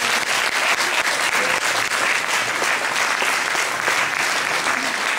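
A crowd applauding: many hands clapping steadily at an even level.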